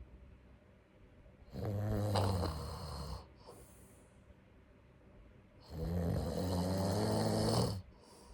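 A sleeping person snoring: two long snores about four seconds apart, each followed by a brief breathy exhale.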